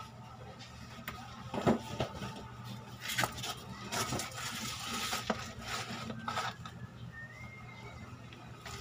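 Scattered light clinks and knocks, a few seconds apart, over a steady low hum, with a brief faint wavering whistle near the end.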